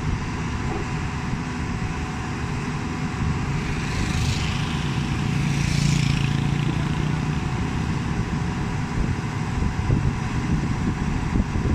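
Diesel engine of a JCB 205 tracked excavator running under load as the machine works itself onto a lowbed trailer. The engine grows louder about four seconds in, with a hiss that fades again by about seven seconds, and a few knocks come near the end.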